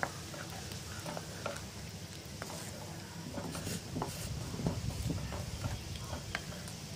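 A spatula stirring thin, watery curry in a clay pot, with scattered light taps and scrapes against the pot's side over a steady low hum.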